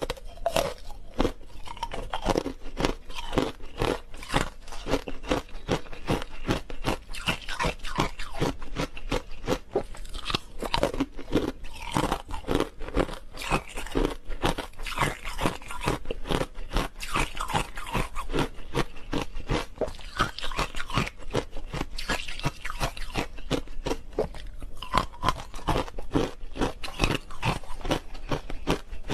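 Frozen matcha green tea ice being bitten and chewed: a continuous stream of rapid, crisp crunches.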